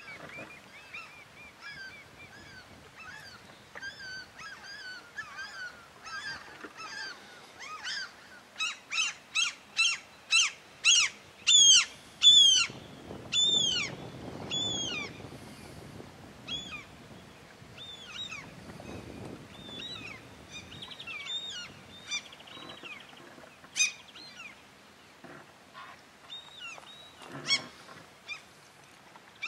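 Birds calling over open water, with many separate calls throughout. A run of loud calls, about two a second, builds up in the middle and then gives way to scattered calls.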